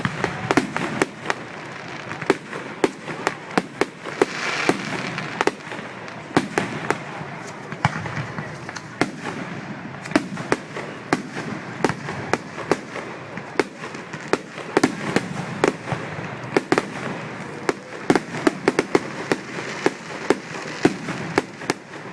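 Fireworks going off in a fast, irregular barrage of sharp bangs and crackles, many in quick clusters, over a steady hiss.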